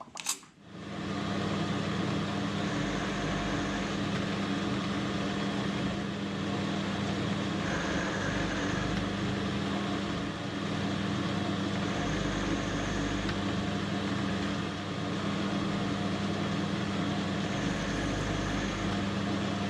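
Metal lathe starting about a second in after a click, then running steadily while thread-cutting passes are taken on a small steel part. Its hum changes briefly about every five seconds.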